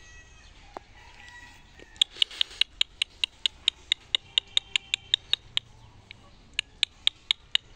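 A small animal chirping in a fast, even series of short, sharp, high-pitched notes, about five a second. The chirps start about two seconds in, break off for a moment past the middle, and start again near the end.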